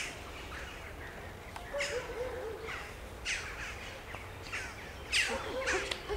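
Wild birds calling: short calls that slide downward in pitch, repeated several times, coming thicker near the end.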